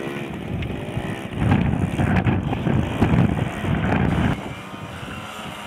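Small scooter engine revving in surges while its rear wheel spins in deep mud and the scooter is stuck; the revving drops off about four seconds in.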